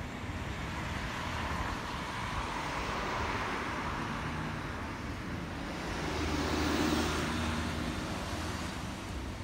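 Passing road vehicles: a steady rushing noise that swells as one goes by about two to four seconds in, and again, louder and with a low engine hum, as another passes about six to seven seconds in.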